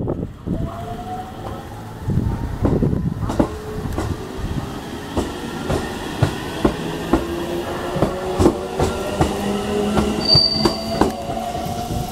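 JR Central 313 series electric multiple unit gathering speed: its motor whine climbs slowly in pitch over a run of sharp clacks from the wheels on the rail joints. A brief high squeal comes about ten seconds in.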